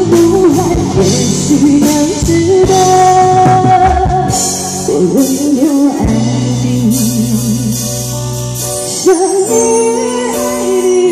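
A woman singing a pop song into a microphone over loud amplified backing music with bass and drums, her voice wavering with vibrato on held notes.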